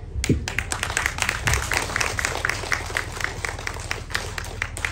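Audience clapping: many quick, sharp hand claps from a gathered crowd.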